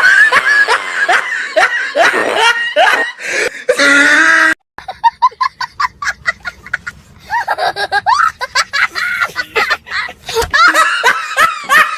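People laughing in rapid short bursts. Before the laughing, a loud voice cuts off suddenly about four and a half seconds in.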